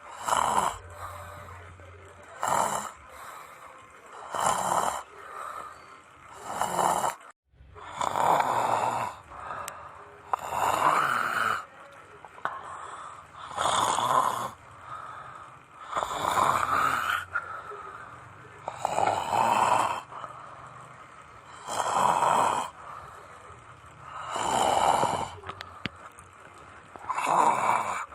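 A person snoring loudly, one long snore every two to three seconds, with a brief dropout about seven seconds in.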